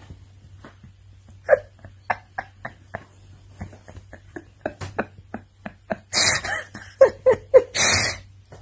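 Domestic cat suckling and chewing on a duvet: a run of small wet clicks, a few each second. Near the end there are two loud hissing bursts.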